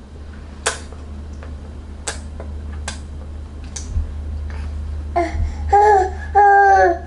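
A few sharp clicks during spoon-feeding, then a high-pitched voice making short cooing, babbling sounds near the end, over a steady low hum.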